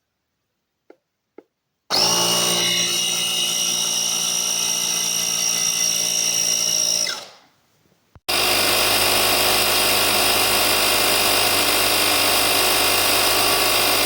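Small 12 V tire-inflator air compressor: two faint clicks, then it starts and runs steadily with a high whine, winds down and stops after about five seconds. After a click it starts again, running with a harsher, noisier sound to the end.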